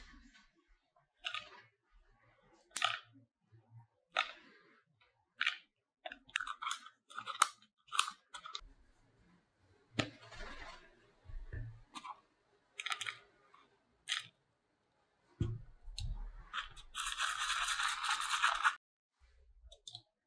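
Small scissors snipping a thin green strip into little pieces, a sharp snip every second or so, followed by light clicks and taps of small containers and pieces being handled. Near the end comes a steady rustle lasting about two seconds.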